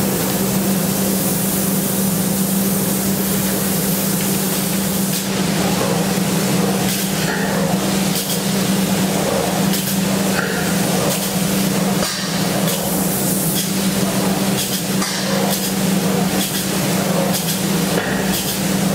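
Plural-component spray gun, fed by a Graco E-XP2 proportioner, spraying a two-part coating in a steady hiss over a steady low hum, with short knocks every second or two from about five seconds in.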